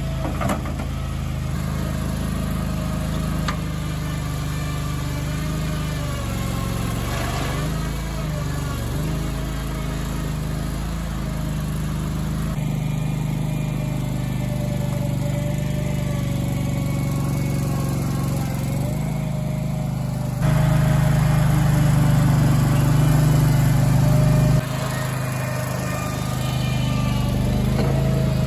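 Toro Dingo compact utility loader's engine running under load as it scoops and dumps dirt, a steady hum whose level shifts as the machine works, loudest for a few seconds about two-thirds of the way through.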